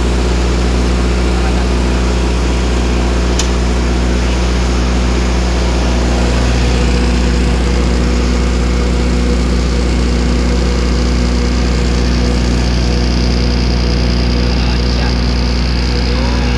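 Motorstar 50 kVA diesel generator set running steadily, its diesel engine holding an even speed.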